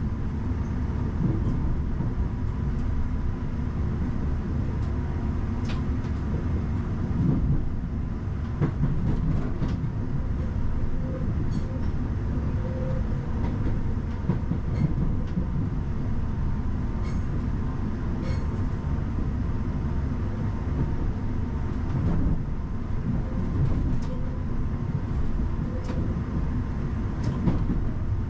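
Class 331 electric multiple unit running along the line, heard from the driver's cab: a steady low rumble of wheels on rail with a faint steady whine and scattered sharp clicks and knocks.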